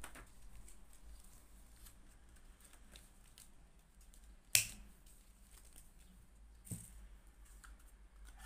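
Quiet handling sounds of packing small orders: faint scattered ticks over a steady low hum, with one sharp click a little past halfway and a softer knock about two seconds later.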